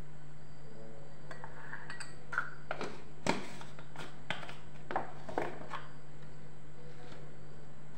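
Several light clinks and knocks of crockery and a spice container handled on a marble kitchen counter, clustered in the middle few seconds, over a steady low hum.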